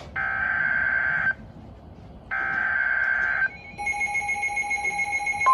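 Emergency Alert System SAME header on NOAA Weather Radio: two buzzy digital data bursts about a second long each, a second apart, then a quieter pattern of steady tones. The steady weather radio warning alarm tone starts right at the end.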